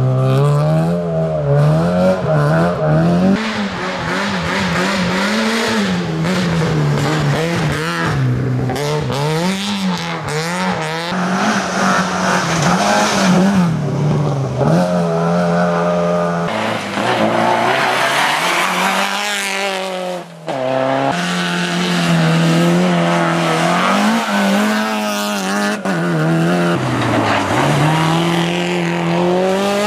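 Rally car engines revving hard through corners, the pitch climbing and dropping again and again with gear changes and lifts, over tyre noise on a wet, snowy surface. Several passes follow one another, with a short drop in sound about twenty seconds in.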